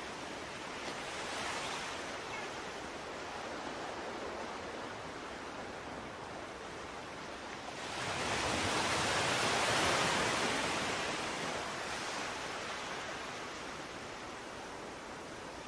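Steady rushing noise with no distinct events, swelling louder for a few seconds about halfway through.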